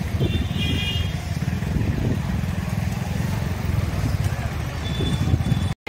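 Steady low rumble of a moving vehicle. A short high whine comes in briefly about a quarter second in. The sound cuts off suddenly near the end.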